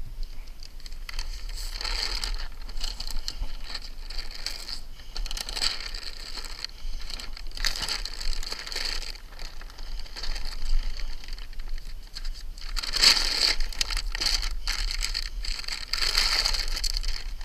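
Paper release liner crinkling and rustling as it is peeled back and handled on a roll of Grace Ice & Water Shield self-adhering roofing membrane, in several swells of crackly rustling.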